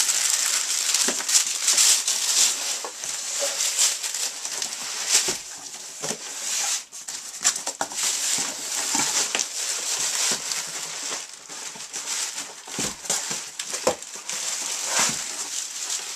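Plastic packaging bag crinkling and rustling in quick, dense crackles, with cardboard packing being handled and scraped, as a boxed subwoofer is unwrapped.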